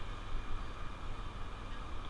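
Honda Trail 125 ridden at steady speed: steady wind rush and rumble over the microphone, with the bike's small single-cylinder four-stroke engine running underneath.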